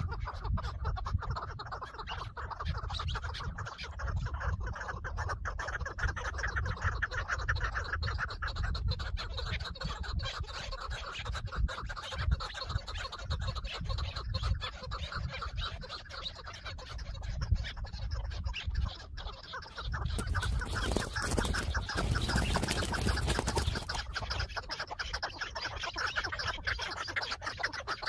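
Chukar partridges calling in a fast, continuous chatter. A burst of loud hissing noise covers them for about four seconds, two-thirds of the way in.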